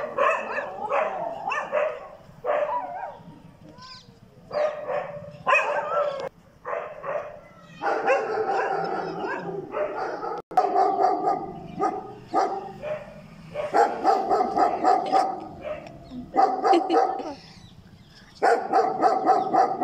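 Dogs barking in rapid runs of barks, with short pauses between runs.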